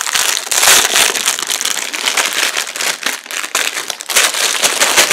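Plastic packaging crinkling and crackling as it is handled and pulled open, with a dense run of quick irregular crackles.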